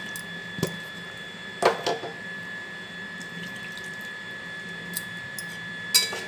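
Water poured from a steel grinder jar into a kadai of simmering curd curry, with a few sharp clinks of metal on metal, the loudest near the end.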